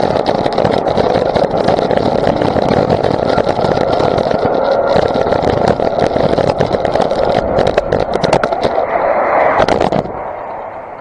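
Heavy wind rush and buffeting on a motorcycle-mounted camera's microphone, with the motorcycle's running under it, as the bike rides at speed in the rain. A run of sharp knocks comes near the end, and then the loud rush drops off suddenly about ten seconds in.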